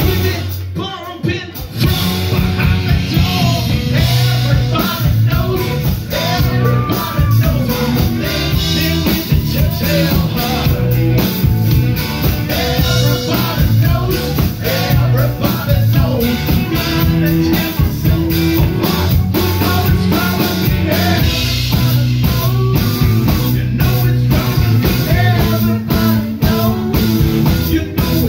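Live rock band playing: drum kit, bass and electric guitars, with a singer's voice over them.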